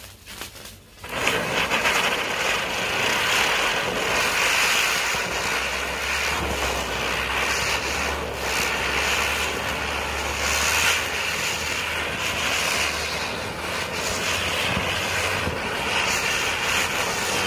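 Large Sunshine-brand chakri (ground spinner firework) catching about a second in and spinning with a steady, unbroken rushing hiss.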